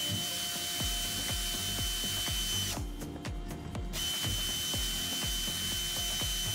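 Pneumatic screwdriver of the traditional 300 rpm type running with a steady air hiss and thin whine as it drives a screw. It stops about two and a half seconds in, then runs again on the next screw about four seconds in. Background music with a steady beat plays throughout.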